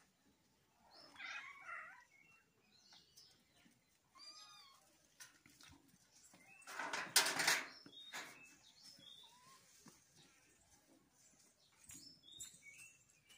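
Domestic cats and kittens playing, with a few short mews, and a short loud noisy burst about seven seconds in.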